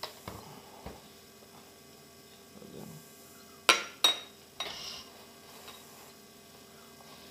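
A metal-and-carbon folding knife set down on the glass platform of a digital kitchen scale: two sharp clinks about half a second apart with the glass ringing briefly, then a softer knock.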